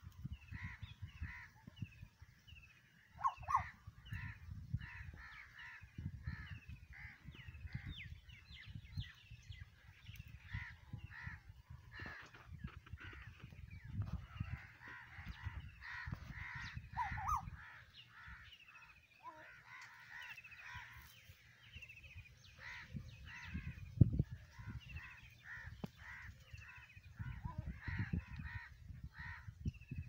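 Crows cawing over and over, several birds calling over one another, over a low rumble on the microphone.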